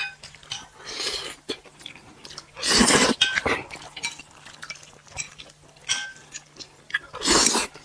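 Eating at a table: chewing, with chopsticks and spoons clicking and clinking against bowls in many short taps. Two louder rushes of noise stand out, about three and seven seconds in.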